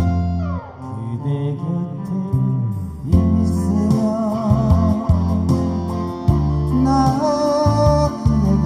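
Busking music: a song with a steady bass line, guitar chords and a wavering melody line, most likely a voice or lead instrument. A falling glide comes in the first second, and the music thins briefly before picking up again about three seconds in.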